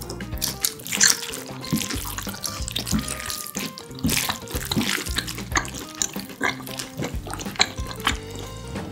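Close-up wet slurping and chewing of saucy jjapaguri noodles with pieces of sirloin steak, in irregular mouthfuls over soft background music.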